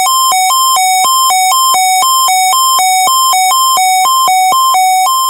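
Weather radio alert alarm: a loud, buzzy electronic hi-lo tone switching between two pitches about three times a second, sounding for the weekly test.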